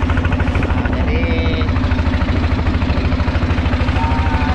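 Boat engine running steadily with a fast, even pulsing beat.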